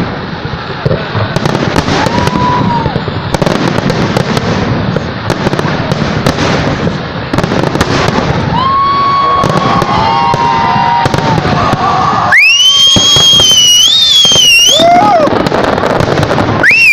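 A fireworks display: a dense, continuous crackle of bursting shells and crackling stars. In the last few seconds a loud, piercing whistle sweeps up and wavers, and a second one starts near the end.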